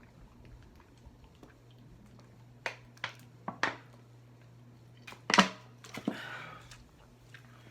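Soda being drunk from a plastic bottle: a few short gulps and clicks, the loudest about five seconds in, followed by a short breathy sound.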